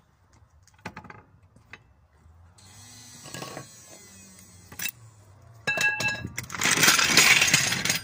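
Hand tools working the locking bolt of a spare wheel cradle: scattered small metal clicks, then sharp metallic clinks with a brief ringing about six seconds in, followed by a loud stretch of rattling and scraping near the end.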